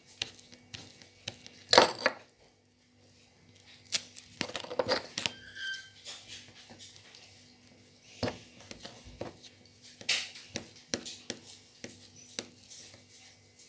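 Kitchen handling sounds as bread is cut and buttered: scattered clicks and knocks of utensils on the counter, with a couple of short scraping stretches, about four and ten seconds in.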